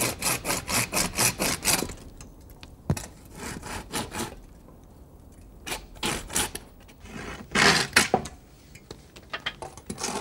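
Pole-mounted pruning saw cutting dead branches off a conifer trunk. A quick run of saw strokes, about four a second, for the first two seconds, then slower, scattered strokes and scraping, with a longer, louder rasp near the end.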